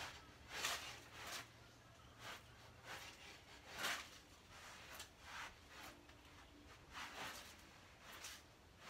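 Faint, irregular rustling: a string of short, soft swishes, about one or two a second.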